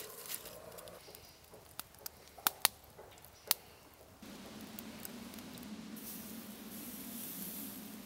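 Split kindling being laid on a small wood campfire: rustling of sticks and leaf litter with a few sharp crackling snaps, loudest near the middle. About four seconds in, this gives way to a steadier rushing hiss as the fire burns up.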